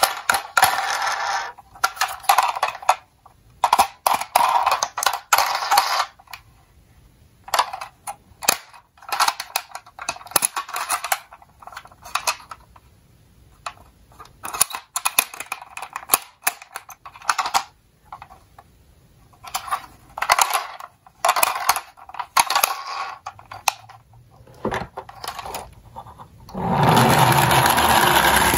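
Plastic toy ambulance handled by hand: irregular clicks and rattles of hard plastic as it is turned over and its rear door is opened. Near the end comes a steadier rolling sound as it is pushed along a table.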